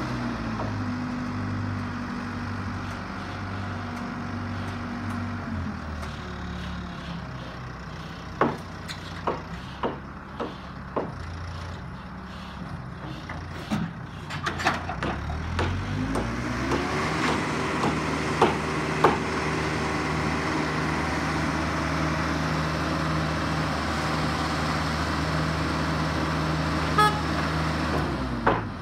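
A motor running steadily, its pitch shifting down about six seconds in and rising again around sixteen seconds, with a string of sharp knocks through the middle.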